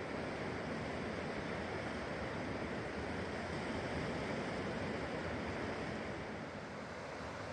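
The Colorado River running high past the beach, a steady rushing of fast-moving water.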